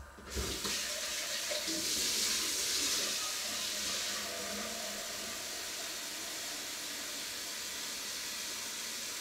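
Kitchen tap turned on with a soft thump just after the start, then water running steadily into the sink, a continuous splashing hiss that is strongest in its first few seconds.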